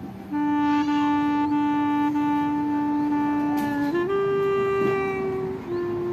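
Slow background music: a wind instrument plays long held notes, stepping up in pitch about four seconds in.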